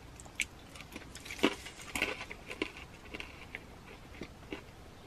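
Quiet chewing with scattered small crinkles and clicks from a red wax cheese wrapper and a plastic mesh bag being handled; the sharpest clicks come about a second and a half and two seconds in.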